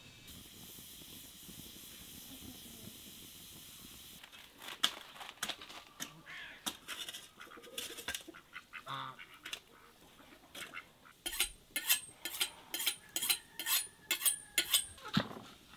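Chopping with a cleaver: a steady run of sharp strikes, about three a second, each with a light metallic ring, over the last few seconds. Before that, a goose honks among scattered small knocks.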